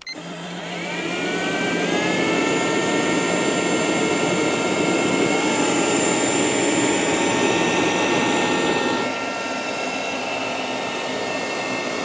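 Miele Scout RX2 robot vacuum cleaner running: a whine that rises in pitch over the first couple of seconds, then holds steady over a rushing noise. The sound drops somewhat in level about nine seconds in.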